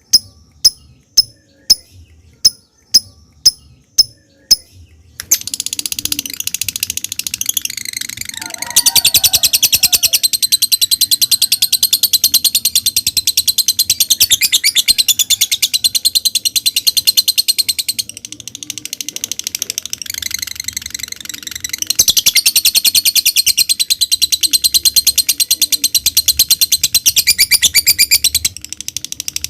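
Lovebird giving sharp single ticking calls, a little under two a second, then breaking into a long, very fast chattering trill (the 'ngekek' song), which goes softer for a few seconds in the middle.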